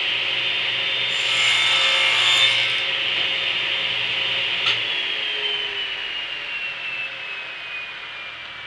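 Table saw running and crosscutting a strip of softwood 2x stud, the blade biting through about a second in. Near the middle the saw is switched off and the blade's whine falls steadily in pitch as it coasts down.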